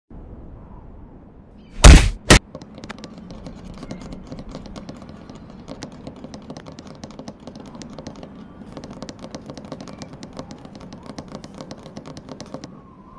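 Cartoon fight sound effects: two loud hits about two seconds in, then a long rapid clatter of small hits for a flurry of punches, which stops near the end.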